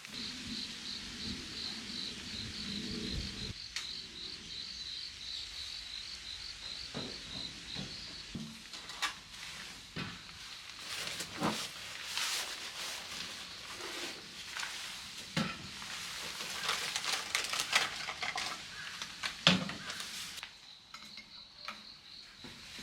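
Clinks, clatter and scraping of camp cookware and utensils, with a light sizzle, through the middle of the clip. A high, rapidly pulsing chirp runs at the start and comes back near the end.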